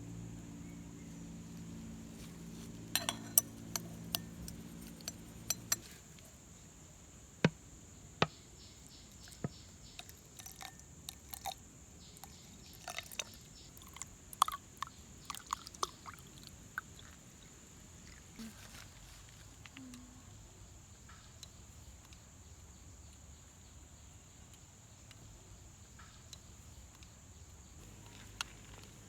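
Scattered sharp clicks and clinks, densest in the first half, over a steady high-pitched insect drone. A low hum stops about six seconds in.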